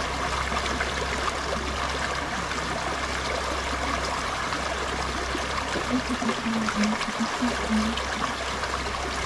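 Shallow river running over rocks: a steady rush and trickle of water.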